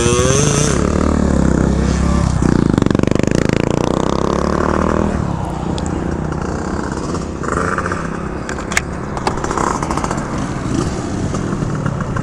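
Two-stroke scooter engine running under way, heard from the rider's seat: it revs up, runs hard for a few seconds, then eases off about five seconds in and runs rougher. The engine is gargling badly, a sign of the fault that soon stops the scooter.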